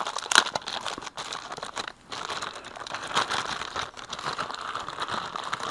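Packaging being handled during an unboxing: a steady crinkling and rustling with scattered sharp clicks.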